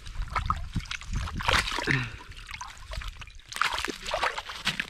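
Water and slush splashing and sloshing in an ice-fishing hole in irregular bursts as a large fish thrashes and is lifted out by hand.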